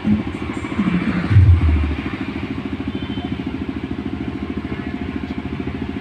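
A small engine running steadily with a fast, even beat. Two deep booms sound in the first two seconds.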